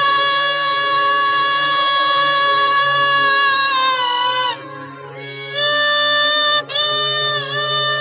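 Pingu's "noot noot" beak honk, drawn out into long held horn-like notes. The first lasts about four seconds and wobbles down at its end. About a second later a second one runs about two and a half seconds, with a dip near its end. A steady low hum runs underneath.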